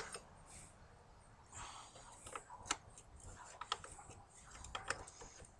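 Faint, scattered small metallic clicks of a wrench and hands working a fuel-line fitting at a diesel fuel pump, loosened to bleed the fuel system. There is a sharp click at the start, then a few more spread through the rest.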